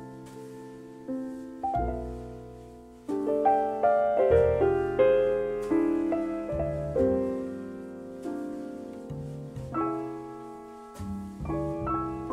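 Jazz piano playing slowly, with chords and melody notes struck and left to ring, and low bass notes beneath.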